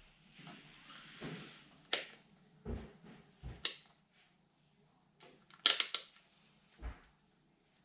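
A series of sharp clicks and a few dull knocks, with a loud cluster of clicks about two-thirds of the way through: small hard objects being handled and set down.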